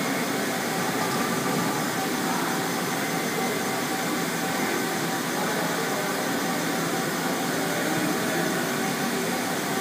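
Fortune VTurn 26 II CNC turning center running: a steady mechanical hum and hiss with a few faint steady tones.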